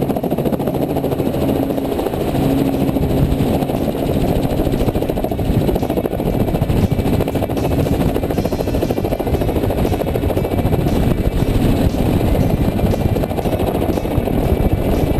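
Robinson helicopter's engine and rotor running steadily at close range as the helicopter lifts off the airport ramp.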